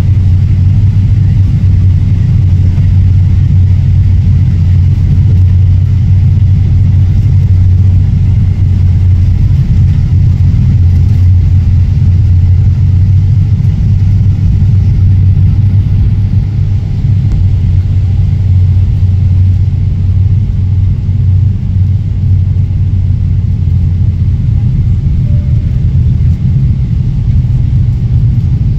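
Steady low rumble of a Boeing 777 heard inside the passenger cabin during descent: engine and airflow noise, loud and even, easing a little from about halfway.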